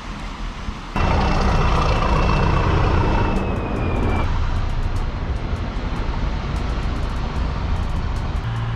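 A train crossing a railway bridge, coming in suddenly about a second in: a steady rumble with a high whine that slides slightly lower and stops after about three seconds.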